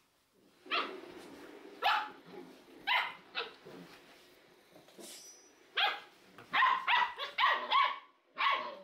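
Rough collie puppies barking in play-fighting: short, sharp barks, a few spaced out at first, then a quick run of them in the second half.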